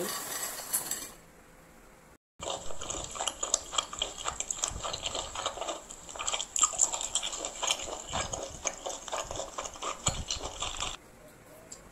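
Crunchy snack mix of peanuts, corn, green peas and crackers is poured from a plastic bag onto a plate with a brief rattling hiss. After a short cut, it is chewed with dense, crisp crunching close to the microphone, which stops about a second before the end.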